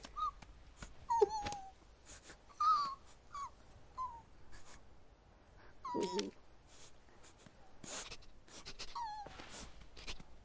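Animated sabre-toothed squirrels' vocal squeaks and chirps: short, high, sliding calls scattered through, with a louder, fuller burst about six seconds in, among light clicks and rustles.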